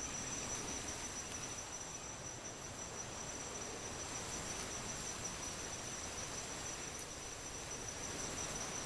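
Night-time insect chorus in the forest: a steady high-pitched trill over a low, even hiss.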